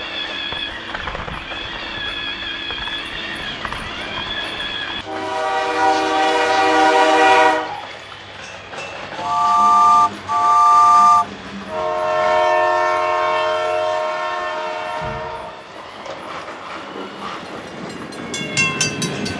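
Toy train horn sounds: a long horn blast about five seconds in, two short toots, then another long blast, with a run of rapid clicks near the end.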